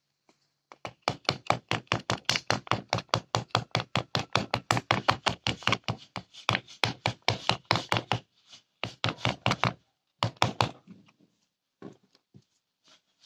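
Fast tapping and knocking on a plastic phone back cover bedded in moulding sand, about five knocks a second for several seconds, then a shorter run after a brief pause.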